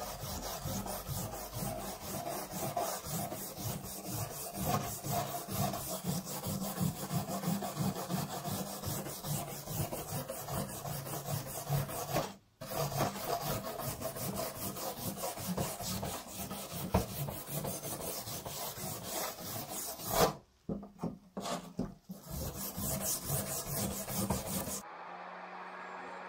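Wet scrubbing of a rusty steel blade in a tub of liquid: quick, rasping back-and-forth strokes, interrupted twice by brief pauses. In the last second or so the scrubbing stops and a steady low hum is heard.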